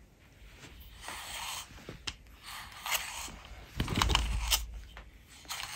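A plastic slicker brush drawn through a short-haired cat's fur: several scratchy brush strokes, each under a second long, with short pauses between. A low bump about four seconds in.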